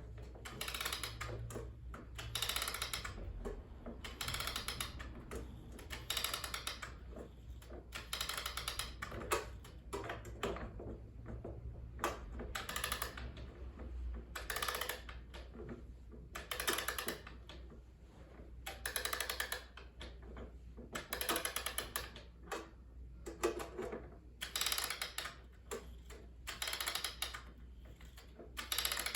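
Wind-up clock being wound with its key: a run of rapid ratchet clicks with each turn, repeated about once every two seconds with short pauses between turns.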